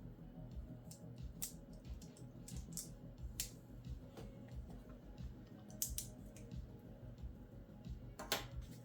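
Plastic LEGO bricks clicking and rattling as pieces are handled and snapped together, a few sharp irregular clicks with the loudest near the end, over soft background music.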